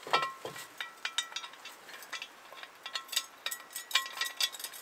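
Steel jack stand being adjusted and set under a trailer frame: a run of irregular metal clicks and clinks, some ringing briefly, the loudest about the start.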